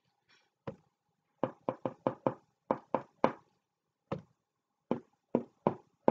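The tip of a long wooden stick is tapped against a painting board again and again, dabbing on dots of paint. It makes about fifteen sharp knocks in uneven clusters of two to four.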